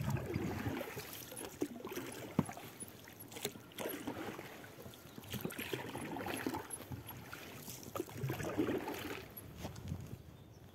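Oars of a PVC inflatable boat dipping and swishing through the water as it is rowed, about one stroke every two and a half seconds, with a few light knocks.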